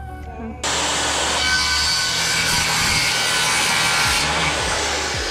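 DeWalt corded circular saw cutting through a sheet of plywood, starting suddenly about half a second in and running steadily through the cut.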